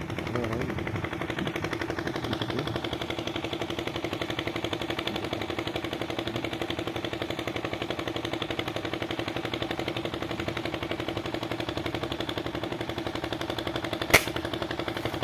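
A small engine running steadily with a fast, even putter, and one sharp click near the end.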